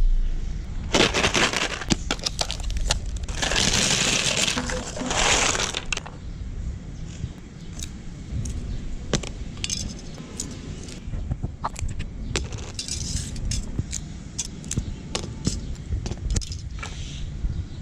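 Foil-wrapped chocolate coins clinking and crinkling against the metal of a manual meat grinder. Two bursts of dense rattling come in the first few seconds, then scattered sharp clicks and crunches.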